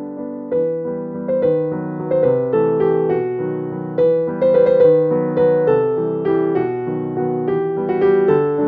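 Background piano music: a gentle melody of separate notes over held chords at a steady pace.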